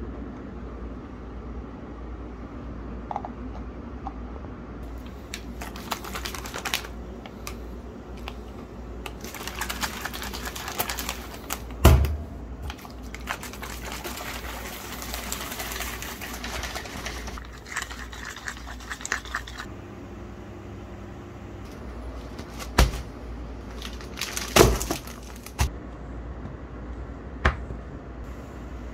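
Kitchen-table handling noises over a steady low hum: a plastic water bottle and funnel clicking and knocking, with one loud knock about 12 seconds in. This is followed by a few seconds of the bottle being shaken, then a few sharp taps near the end as things are set down on the table.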